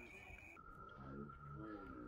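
A steady high electronic tone that drops to a lower pitch about half a second in, with a faint, muffled voice underneath.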